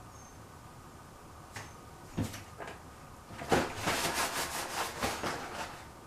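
Handling noises: a few light knocks about two seconds in, then about two seconds of dense rustling and scraping.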